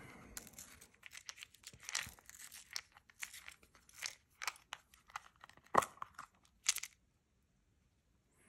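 Fingers working open a small puck-shaped nicotine lozenge container: a run of short crinkles and clicks, with two sharper snaps near the end.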